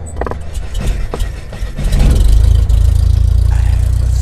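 Intro sound effects: a few sharp crackling clicks over a low drone, then a deep bass rumble that swells in about two seconds in and holds as the loudest part.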